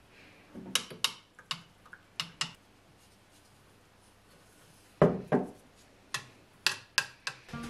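Scattered clinks and knocks of a steel knife blade against a glass jar of instant coffee as the blade is set into the coffee for etching, in two clusters with the loudest knock about five seconds in.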